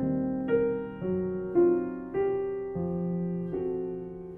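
Slow piano music: single notes and chords struck about every half second to second, each ringing and fading before the next.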